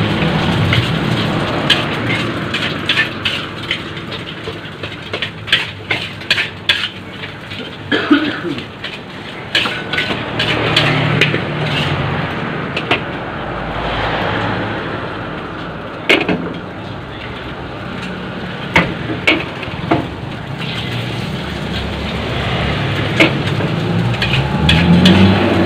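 Metal spatula clanking and scraping irregularly against a large wok as fried rice is stir-fried, over a steady hiss of frying. A motor vehicle engine is heard at the start and again rising near the end.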